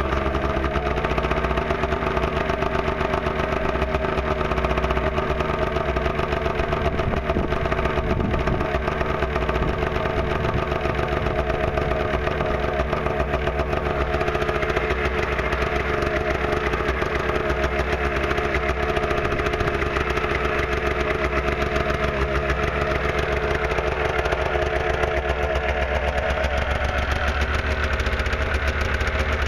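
2000 Arctic Cat ZL 600 EFI snowmobile's fuel-injected two-stroke twin idling steadily just after a cold start, its pitch wavering slightly.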